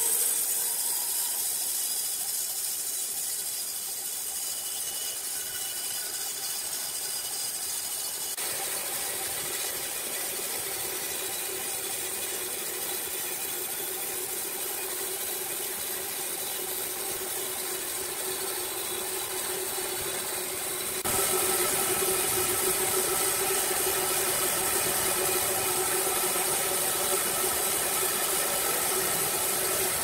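Horizontal band sawmill running with its blade cutting through a log: a steady motor hum under a high hiss. It gets abruptly louder about twenty seconds in.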